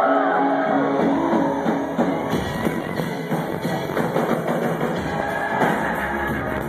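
Live electronic music with a drum kit, played loud through a concert PA and picked up on a phone's microphone. Deep bass comes in about two seconds in.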